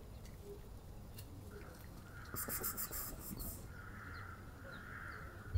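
Outdoor bird calls: three drawn-out calls in the second half, the first overlaid by a quick run of high pulses, with faint chirps and a low background rumble.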